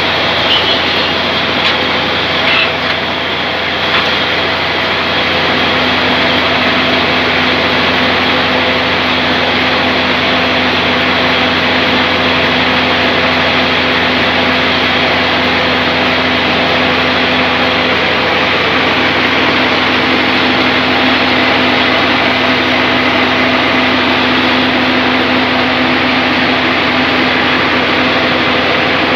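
Sawmill machinery running steadily and loudly, a continuous drone with a few held tones; another steady tone joins about five seconds in.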